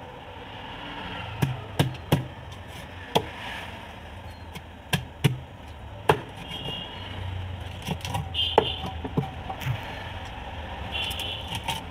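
A heavy cleaver chopping through rupchand fish into a wooden chopping block: about a dozen sharp chops at an irregular pace, some in quick pairs.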